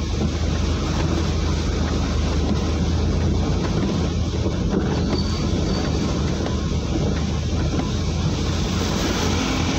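A vehicle driving through a flooded street: its engine hums steadily under a constant wash of noise from water churned by the wheels, with wind on the microphone.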